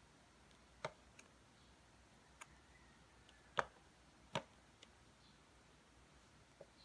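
A few short, sharp clicks of small plastic parts being handled and fitted together at the wrist, the loudest about halfway through, with near silence between them.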